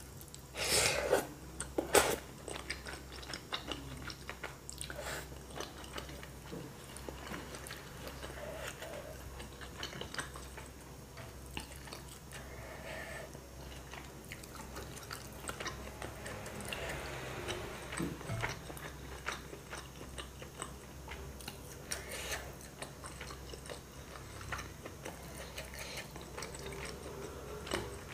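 A person eating chicken noodles: a loud slurp of noodles about a second in, then steady chewing with many small clicks of wooden utensils against a ceramic bowl.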